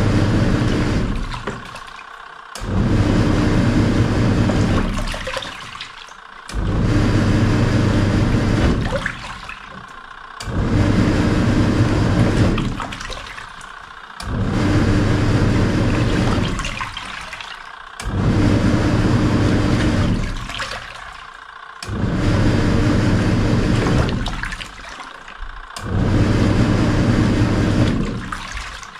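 Samsung SW-655P twin-tub washing machine's wash tub mid-wash: the pulsator motor hums and the water churns in bursts of about two and a half seconds, broken by a short pause roughly every four seconds as the wash action reverses direction.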